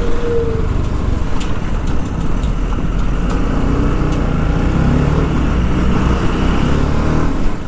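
Motorcycle engine running at riding speed, heard from the rider's seat over road and wind noise, its pitch shifting a little as the throttle changes.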